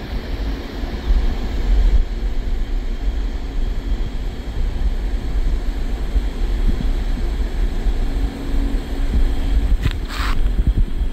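Wind buffeting the microphone: a rough, fluctuating low rumble, with a brief rustle near the end.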